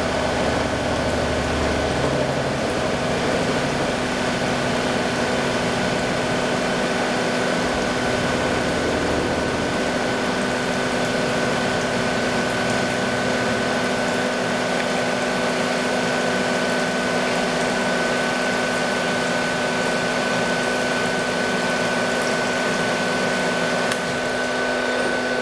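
CNC milling machine cutting a workpiece under flood coolant: a steady whine from the spinning spindle and cutter over the hiss and splash of coolant.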